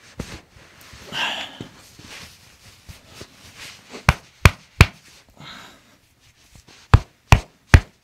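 Sharp clicks from a chiropractic treatment of the patient's ankle and foot: two quick runs of three, evenly spaced about a third of a second apart, a little after four seconds in and again near seven seconds.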